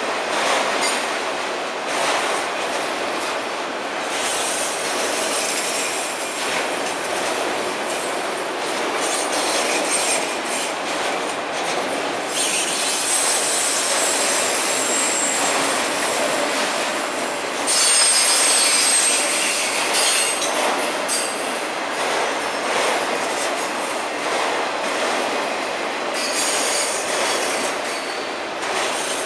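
Freight train of autorack cars rolling steadily past, with the clatter and rumble of wheels on the rails. A high-pitched wheel squeal comes and goes several times and is loudest about 18 seconds in.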